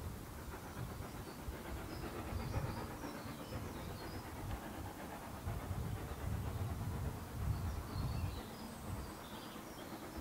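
LSWR S15 4-6-0 steam locomotive working a train in the distance, its exhaust beats coming across open country as low, uneven chuffs. Small birds chirp over it, about a second in and again near the end.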